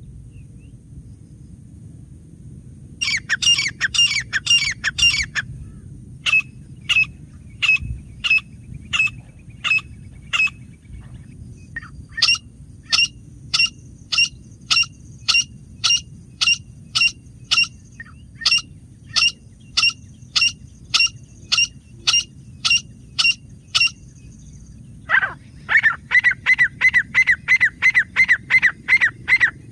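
Grey francolin calling: loud, sharply repeated calls in several bouts with short pauses. Most runs go at about two calls a second, while one about three seconds in and one near the end are faster.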